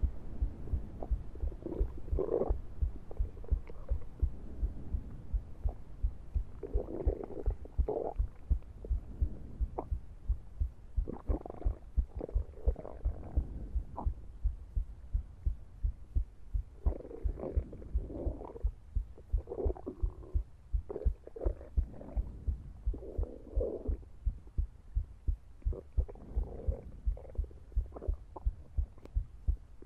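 Sound design under the end credits: an even, repeating low pulse with muffled, swelling mid-range rumbles that come and go over it.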